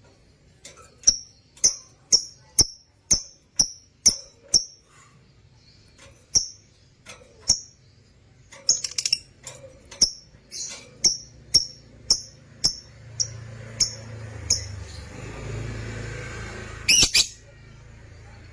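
Lovebird giving a run of short, sharp high chirps, about two a second, with a brief pause partway through. Near the end a rustling noise builds, broken by a louder double call.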